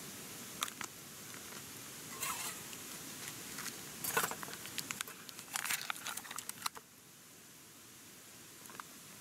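Crinkling and rustling with small sharp clicks in irregular bursts, the busiest around the middle, stopping about seven seconds in.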